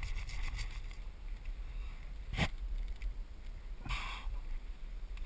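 Steady low wind rumble on the microphone, with a single sharp click about two and a half seconds in and a brief rustle about a second and a half later.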